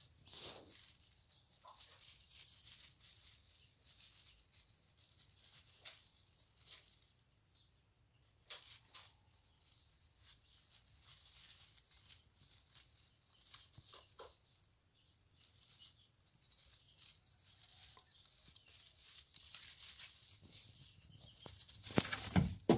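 Faint, irregular rustling and crackling of fresh grass blades as young rabbit kits move through a heap of grass and nibble at it. A louder rustle and knock comes near the end.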